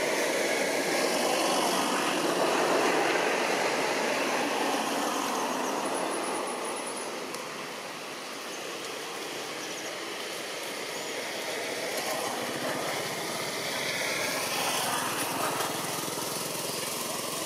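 Steady rushing engine noise of passing motor traffic, louder in the first few seconds, easing off about 8 seconds in and building again near the end.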